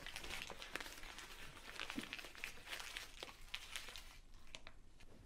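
A sheet of paper being crumpled in a fist, with a dense crinkling crackle that dies away after about four seconds.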